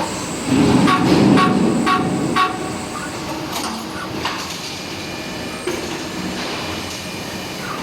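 Automatic CNC screwdriving machine running: a steady mechanical hum, with sharp clicks about twice a second in the first few seconds and a few scattered clicks after that.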